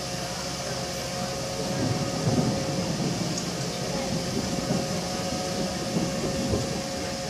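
Aerial ladder fire truck running steadily while its ladder is raised and extended, with a constant hum and a steady whine from the engine and ladder hydraulics. The rumble grows rougher from about two seconds in.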